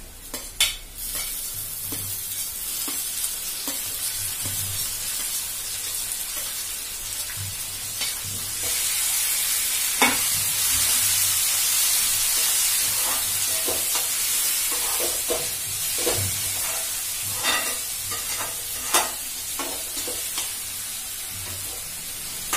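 Chopped tomato sizzling as it fries in oil with onion and garlic, stirred with a metal spoon that clicks and scrapes against the pan. There is a sharp clink about half a second in, and the sizzle grows louder about eight seconds in.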